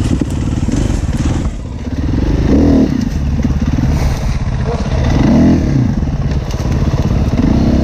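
Husqvarna enduro dirt bike's engine running close up, blipped to higher revs and back about every two and a half seconds while the bike is manoeuvred at low speed.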